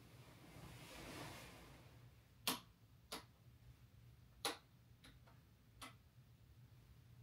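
A handful of light, sharp clicks or taps at uneven intervals, five in all, the first and third the loudest, over a faint steady low hum, with a soft rustle about a second in.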